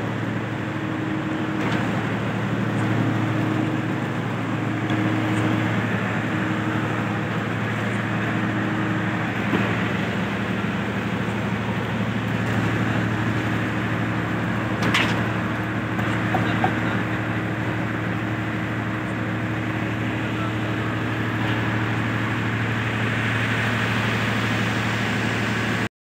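A steady low engine hum runs throughout, typical of a concrete mixer's or generator's motor on a building site, with a single sharp knock about halfway through.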